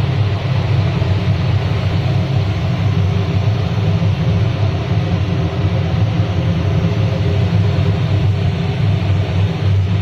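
Oil-fired aluminium melting furnace in operation: the oil burner firing together with its electric centrifugal combustion-air blower, a loud, steady noise with a heavy low rumble.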